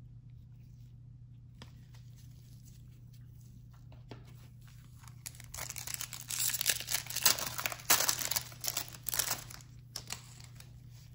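A foil trading-card pack wrapper being torn open and crinkled: a run of sharp crackling that starts about five seconds in and lasts about four seconds, after quiet handling of cards.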